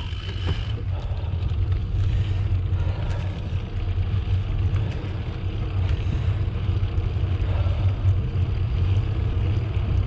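Steady low rumble of riding a bicycle: wind and tyre noise on the microphone. A thin high whine stops under a second in.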